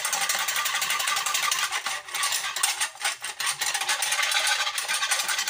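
Wire whisk beating milk in a metal saucepan, a fast steady run of clicking and scraping as the wires hit the pan.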